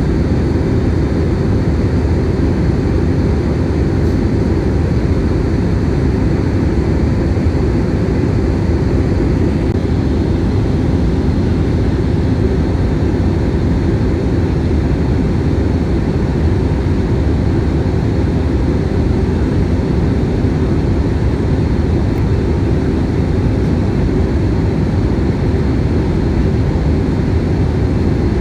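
Jet airliner cabin noise in flight: a steady, unbroken low drone of engines and rushing air.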